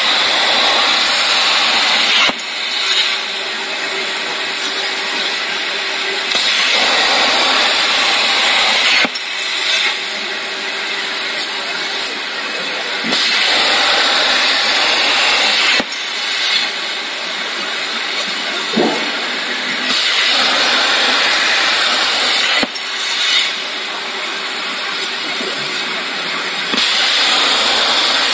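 CNC plasma cutter's arc hissing continuously as the torch cuts 0.6 mm metal sheet. The hiss swells louder for two or three seconds about every six to seven seconds.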